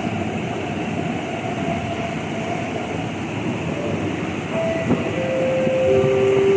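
East Rail line R-train electric train at the platform: a steady rumble of wheels and running gear, with the whine of its electric traction equipment stepping down in pitch over the last two seconds as the sound grows louder.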